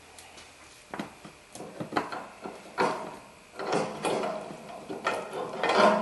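A greased new upper ball joint being fitted by hand into the front suspension: irregular clunks, scrapes and rattles of metal parts knocking together, more frequent and louder in the second half.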